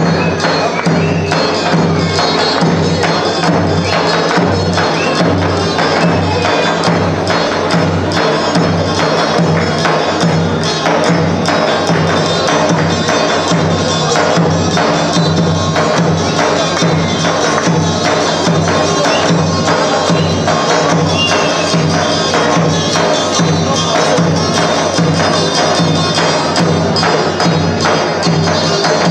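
Live Albanian folk music with a jingled frame drum beaten in a steady, fast rhythm over the other instruments of the ensemble.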